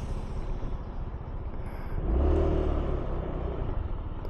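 Low rumble of a motor vehicle engine running at low speed, growing louder about two seconds in and then holding a steady hum.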